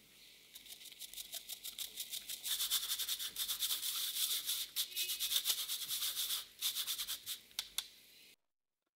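Powdered sugar being sifted through a fine wire-mesh hand sieve, shaken in quick strokes: a fast, scratchy rasping patter that grows denser after a couple of seconds and cuts off suddenly near the end.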